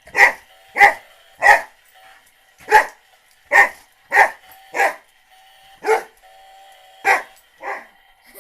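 Boxer dog barking repeatedly: about ten loud, sharp barks, each half a second to a second apart.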